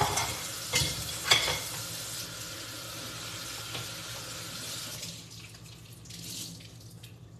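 Water running from a kitchen tap, with a couple of sharp knocks in the first second and a half; the water shuts off about five seconds in. A low steady hum runs underneath.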